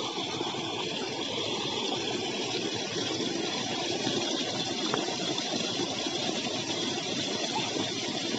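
Steady rushing and splashing of pumped water pouring out of a pipe down a chute into a pond.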